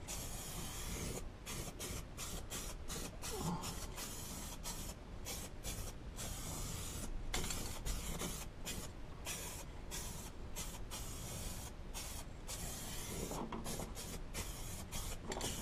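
Aerosol spray-paint can hissing as a second coat of black paint goes onto bare sheet metal, sprayed in many short bursts with brief pauses between them.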